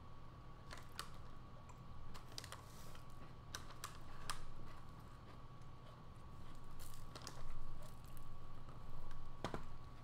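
Mouth sounds of a man chewing a bite of sandwich: irregular wet clicks and smacks, a few at a time with short gaps between. A faint steady high hum runs underneath.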